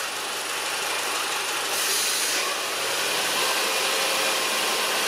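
Audi 1.8 TFSI turbo four-cylinder engine running with its oil filler cap off: air hisses into the open filler, a brief sharper hiss about two seconds in, and the engine speed rises and runs unevenly. This is the sign of a failed crankcase breather (PCV) valve, which also explains the lean-mixture fault.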